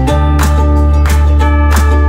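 Background music with a steady beat, sustained bass notes and a bright melody.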